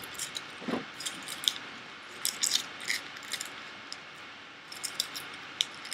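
Aluminium foil nail wraps on the fingertips crinkling as they are handled, in short crackly bursts that come in irregular clusters and thin out near the end.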